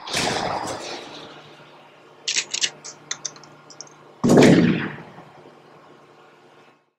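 Cinematic intro sound effects: a heavy boom with a long fading tail, a quick run of sharp clicks and crackles about two to three and a half seconds in, then a second loud boom a little after four seconds that fades away.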